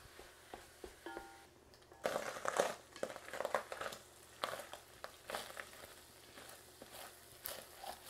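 Wooden spatula stirring and scraping ground pork as it browns in a pot, in irregular strokes. A few light clicks at first, then from about two seconds in louder scrapes over a faint frying hiss.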